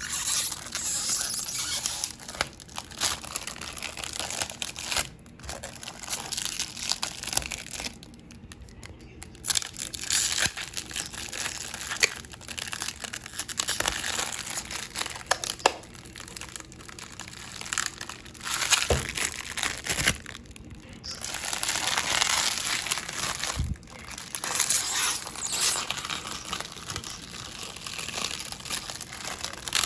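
Plastic crinkling and rustling in stretches with short pauses, and a few sharp clicks.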